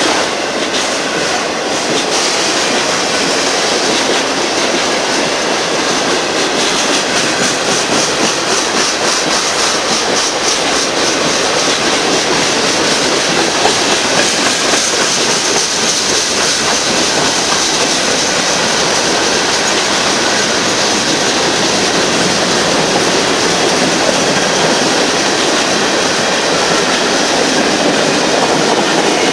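Union Pacific freight train rolling past, a loud steady rumble of wheels on rail with regular clicking of the wheels over the track, strongest in the first third.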